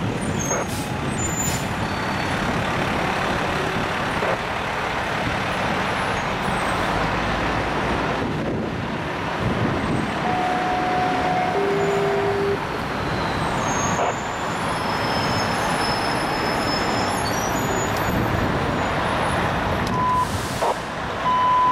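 Fire truck engine running with road traffic noise, a steady rushing sound, as the apparatus pulls out and others approach. A few short steady tones sound in the middle and again near the end.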